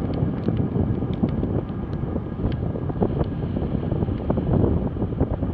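Wind buffeting the microphone of a handlebar-mounted action camera while cycling, a steady low rumble, with scattered small ticks.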